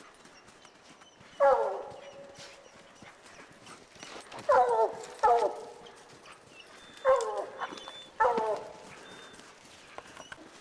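Hunting hounds barking treed beneath a mountain lion: five loud barks at uneven spacing, each starting high and dropping in pitch.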